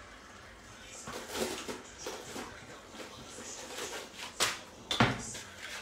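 Kitchen clatter: a run of knocks and clinks of cookware being handled around the stove, the two sharpest knocks near the end.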